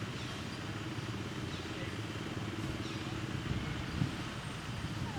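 A steady low rumble, mechanical in character, with a few faint, short, high chirps over it.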